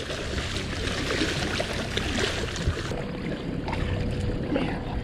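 Steady background noise of a fishing boat on the water, a rushing, trickling wash with no clear strokes. A faint steady hum joins about three seconds in.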